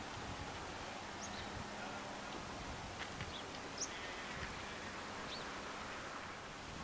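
Steady outdoor ambient noise, with a few short, high bird chirps scattered through it, the sharpest about halfway in.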